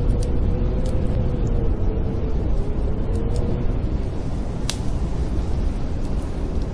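Snowstorm wind howling with a deep, steady rumble and a faint wavering whistle, over sparse crackles and pops of a wood fire in a fireplace; one sharper pop comes a little past the middle.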